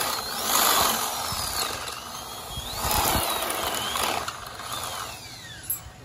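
Ryobi power drill boring out a hole in a steel bracket, the bit grinding in the metal while the motor's whine rises and falls in pitch with the trigger. Near the end the motor winds down with a falling whine as the bit comes out.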